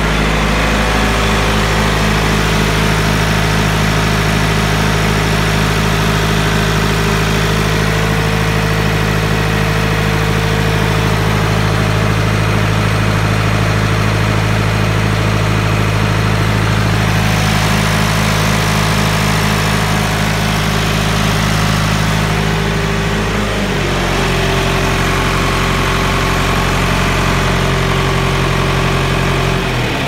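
John Deere 410 backhoe's engine idling steadily, run to charge the battery and loosen up after sitting unused. Its speed steps down about three-quarters of the way through and again at the very end.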